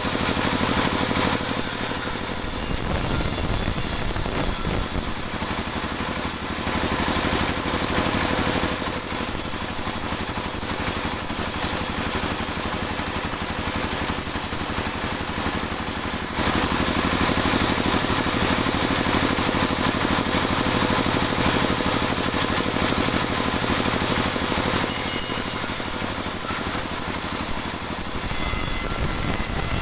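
Band sawmill running steadily while its blade rips a dry teak offcut into a 2 cm board, with a constant high hiss over the machine's drone.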